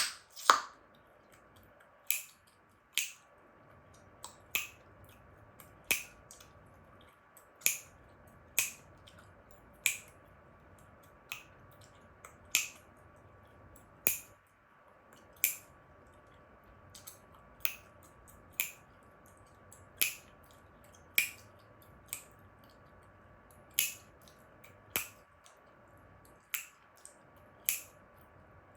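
Chewing gum snapped and cracked in the mouth: sharp separate pops at an irregular pace of about one a second, with faint chewing between them.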